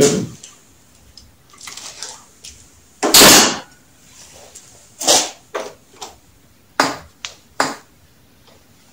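Hand work on motorcycle handlebar parts and tools: a scattered series of short clicks, clacks and knocks, with one louder rattling scrape lasting under half a second about three seconds in.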